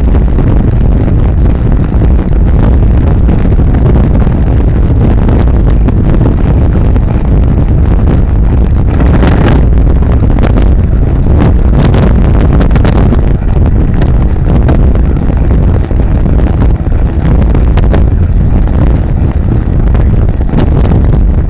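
Wind buffeting the microphone of a camera on a moving recumbent bicycle, a loud steady low rumble mixed with road noise. A cluster of sharp knocks comes about halfway through.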